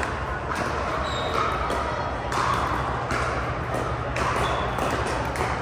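Pickleball paddles hitting a hard plastic ball, an irregular run of sharp pops, from this court and neighbouring ones, over a steady low hum and faint voices.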